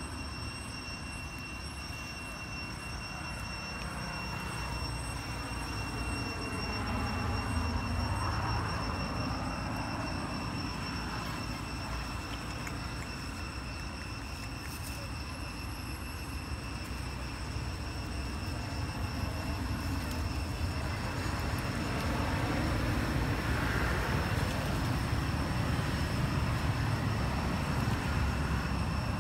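A low, steady outdoor rumble that swells twice, once about a quarter of the way in and again for several seconds in the second half, with a few thin, steady high tones above it.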